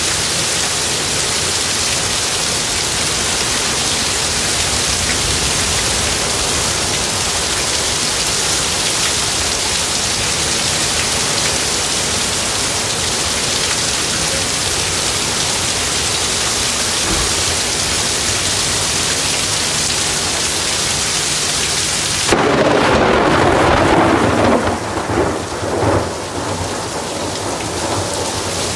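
Heavy rain pouring down with a steady hiss; late on, a sudden loud thunderclap breaks in and rumbles in a few swells for several seconds while the downpour carries on.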